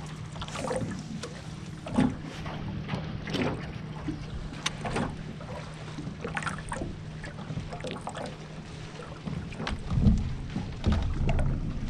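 A boat motor humming steadily, with light slaps and knocks of water against the hull and a couple of wind rumbles on the microphone near the end.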